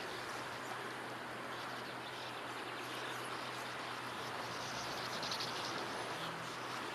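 Faint outdoor ambience: a steady hiss under a low steady hum, with faint calls of a flock of small songbirds, a little stronger about five seconds in.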